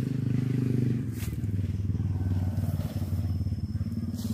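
An engine running steadily, a low even drone with no change in speed. A brief rustle or click near the end, as leaves brush close past the phone.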